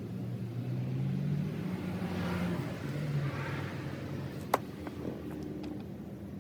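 Engine noise of a vehicle going by, a low rumble that swells and then fades. A single sharp click comes about four and a half seconds in, followed by a few faint ticks.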